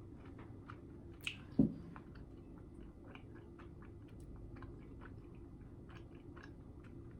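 Close-up chewing of pizza, with many small wet mouth clicks; a louder sharp sound and a short thump come about a second and a half in.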